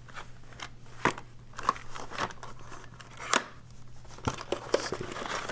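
Cardboard packaging being handled: scattered light taps, scrapes and rustles as a small white cardboard box is lifted out of its shipping box and turned over in the hands.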